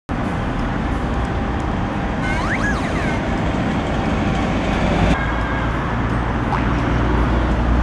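Steady city road traffic noise, with a brief high rising-and-falling squeal about two and a half seconds in.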